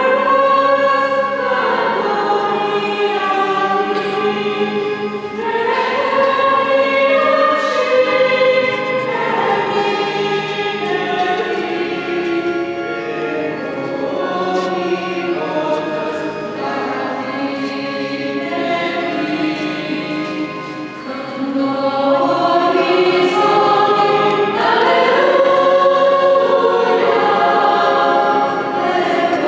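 Church choir singing a hymn with long held notes, without a break.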